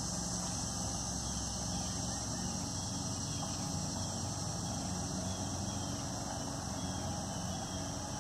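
Steady low engine-like hum under a steady high hiss, with faint short falling chirps repeating from a few seconds in.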